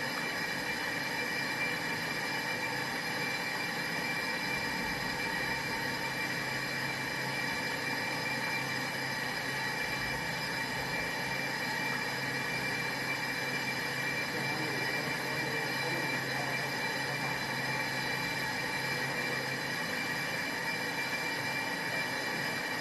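Brake drum and disc lathe running steadily, a constant mechanical whine made of several steady high tones. A low hum underneath stops near the end.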